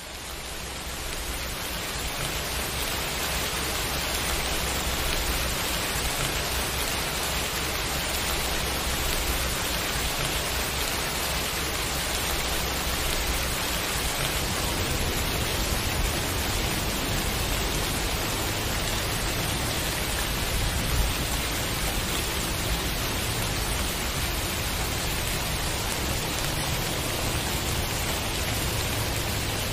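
Steady rain falling, with a low rumble underneath, fading in over the first couple of seconds.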